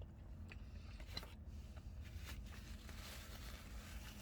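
Faint eating sounds in a car cabin: small clicks and rustles of chewing and handling food, over a low steady rumble.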